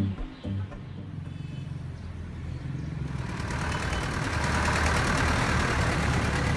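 Street traffic: a passenger pickup truck's engine running steadily with road noise, growing louder about three seconds in. The tail of a music passage fades out in the first second.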